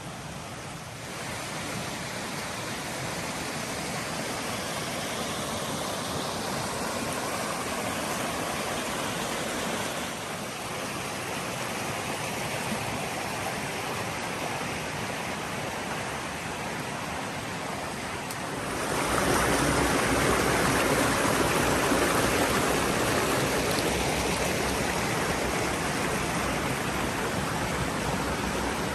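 A creek's flowing water rushing steadily, growing louder about two-thirds of the way through.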